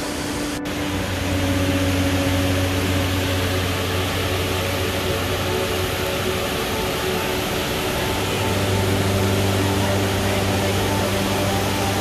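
Steady rush of water from a large cascade waterfall, with sustained low chords of background music over it that change about a second in and again near the end.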